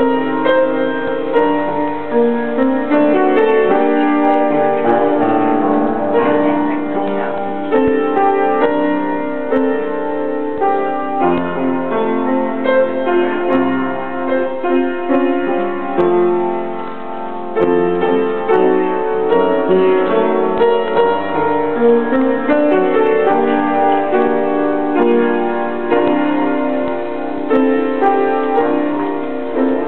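Upright piano played solo: a piece of held chords changing about every second.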